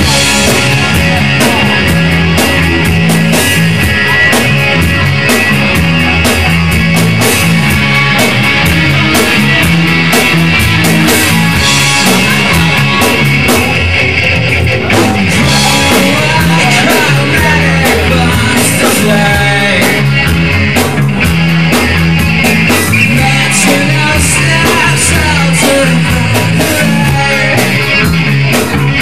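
Live rock band playing loud, over a steady repeating bass line, with a singer's voice.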